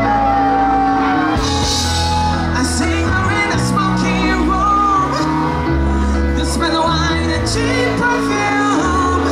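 Live band playing: a singer over bass and drums with a steady beat.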